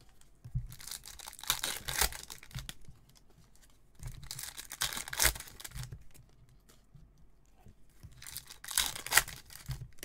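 Foil wrappers of Topps Chrome trading-card packs being torn and crinkled open by hand, in three bursts of crackling.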